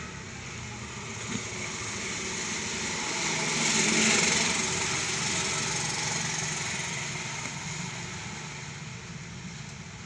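Engine of a passing motor vehicle, growing louder to its peak about four seconds in, then fading away.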